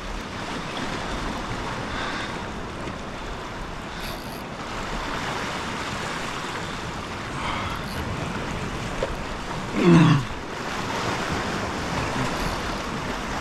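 Ocean swell and surf washing steadily against the rocks. About ten seconds in, a man's short exclamation falling in pitch.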